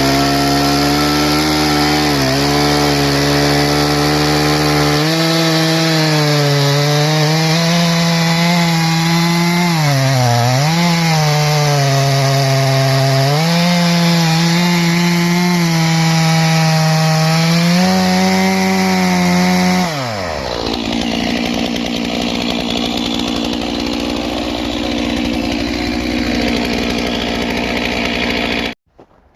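Stihl MS 461 single-cylinder two-stroke chainsaw running at full throttle through a log, its pitch sagging as the chain bogs in the cut around ten seconds in. About two-thirds of the way through the throttle is released and the saw drops quickly to idle.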